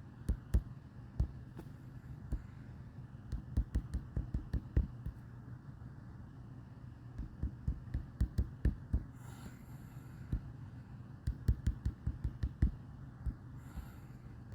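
Fingers tapping on a phone's touchscreen while typing: irregular runs of short sharp taps, several a second, with pauses between the runs, over a steady low hum.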